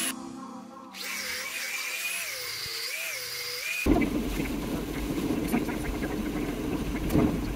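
Small angle grinder whining as it rakes old pointing out of the joints between patio slabs, its pitch wavering up and down under load. About four seconds in this gives way to the steady noise inside a van driving in heavy rain: engine and road rumble, with rain hitting the windscreen.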